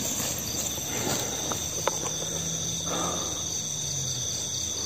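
Steady high chirring of night insects, with a couple of faint clicks near the middle.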